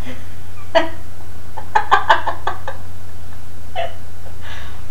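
Indian ringneck parakeet making a few short calls and clicks: one about a second in, a quick cluster around two seconds, and two more near the end.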